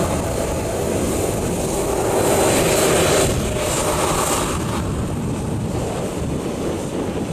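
Boeing 737-800's twin CFM56-7B turbofan engines running at taxi power as the jet taxis and turns away. The steady jet rush with a faint hum swells about two to three seconds in, then eases off.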